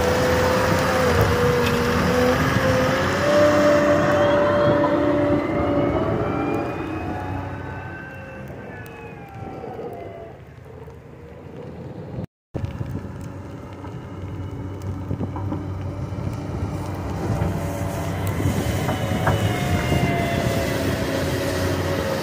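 Terex SKL873 wheel loader's diesel engine running under work, with a steady whine that steps up in pitch about three seconds in. The sound fades as the machine moves away, breaks off briefly near the middle, then grows louder again as it comes close.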